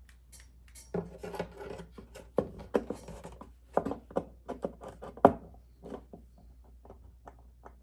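A homemade clamp being handled and fitted against an acoustic guitar's wooden body: a string of irregular clicks, taps and knocks, the loudest a little after five seconds in.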